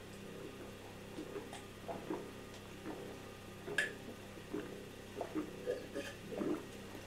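Soft gulping as two men down beer from glass tankards: faint swallows, at times about two a second, over a low steady hum.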